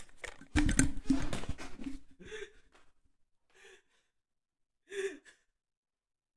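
A man's exasperated gasps and groans mixed with thumps and rustling as headphones are pulled off and he gets up from the desk, loudest in the first two seconds. Then three short, fainter breathy cries, the last about five seconds in.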